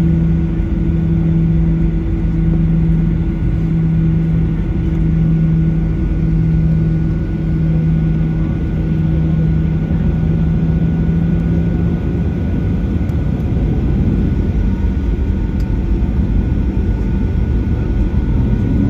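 Cabin sound of a Boeing 737-800's CFM56-7B jet engines at taxi idle: a steady rumble and whine, with a low hum that stops about two-thirds of the way through. Near the end the engine whine begins to rise in pitch as the engines spool up for takeoff.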